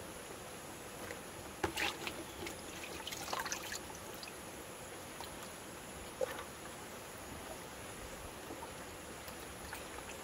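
Water simmering in an aluminium pot of green vegetable stalks over a wood fire: a steady faint bubbling hiss, with a few sharp clicks and crackles in the first four seconds and once more about six seconds in.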